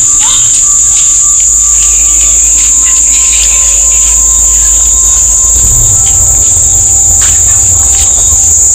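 Night insects calling in a loud, steady, high-pitched drone, with a low rumble underneath.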